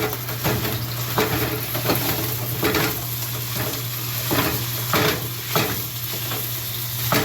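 Ground beef sizzling in a frying pan while a utensil breaks it up, scraping against the pan in repeated strokes, roughly one or two a second.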